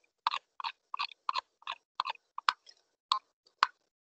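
A steady run of short, sharp clicks, about three a second, from computer input controls while a document is scrolled up on screen.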